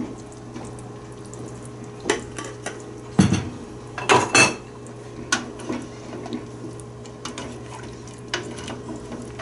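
Metal spoon and utensils clinking and knocking against a stainless steel stockpot and a glass jar: scattered sharp clinks, the loudest in a cluster about three to four and a half seconds in, over a steady low hum.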